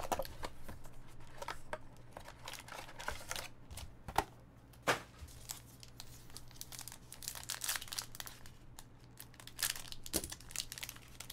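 Trading-card box packaging being opened by hand: irregular crinkling and tearing, with a couple of sharper clicks about four and five seconds in.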